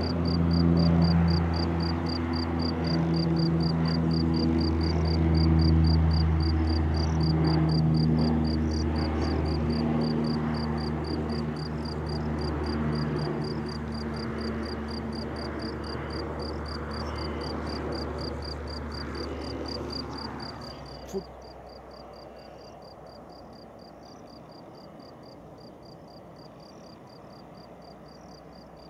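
ATR 72-211 twin-turboprop freighter climbing away after takeoff: a steady propeller drone with strong low tones that slowly fade as it recedes. It cuts off abruptly about 21 s in, leaving a faint low rumble and steady cricket chirping.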